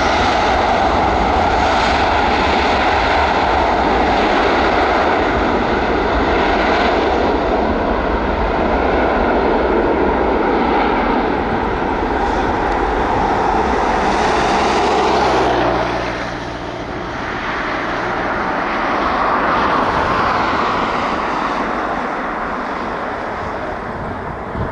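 Airliner engines running loud and steady. The sound drops off about 16 seconds in, swells again briefly, then slowly fades.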